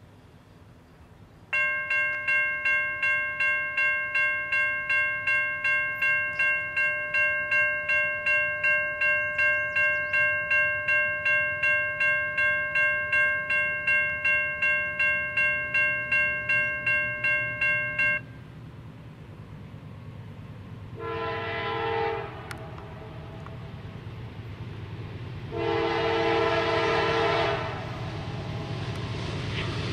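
Grade-crossing warning bell ringing about twice a second; it starts suddenly and stops abruptly about halfway through. Then a CSX diesel freight locomotive sounds two long horn blasts for the crossing as it approaches, its engine rumble growing louder near the end.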